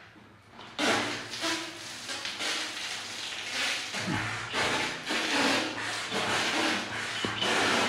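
Holi pichkari (plunger water gun) shooting a jet of water that hisses and splashes against bathroom wall tiles. The spray comes in a string of surges, starting about a second in.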